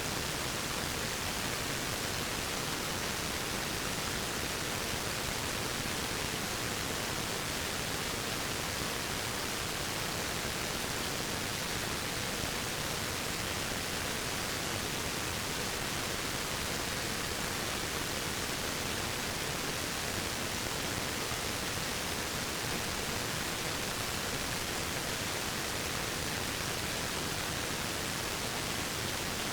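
Waterfall rushing: a steady, unchanging hiss of falling water.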